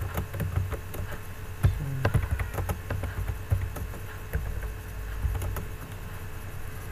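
Computer keyboard keys tapping in short irregular runs over a low steady hum.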